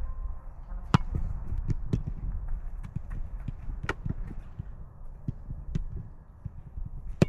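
Footballs being struck: a few sharp thuds, the loudest about a second in, another near four seconds and one just before the end, with smaller knocks between, over a low wind rumble on the microphone.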